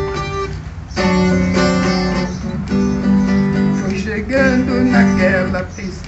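Viola caipira, the Brazilian ten-string guitar, strummed in rhythmic chords for an instrumental passage in a sertanejo-style song. A man's voice comes in over the strumming about four seconds in.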